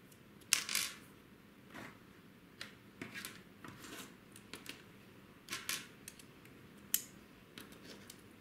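Light, irregular clicks, taps and short scrapes of small hard parts and tools being handled while assembling a 1/28-scale RC drift car chassis. The sharpest clicks come about half a second in and near the seven-second mark.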